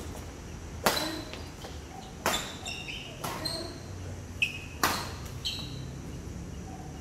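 Badminton rackets striking a shuttlecock in a rally, about five sharp hits at uneven intervals, with short high squeaks between some of the hits.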